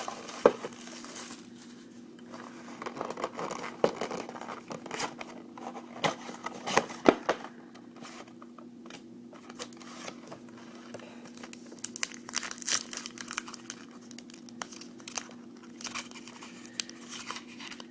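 Plastic wrapping crinkling and tearing in irregular bursts of sharp crackles as a sealed box of trading cards and its packs are opened, over a steady low hum.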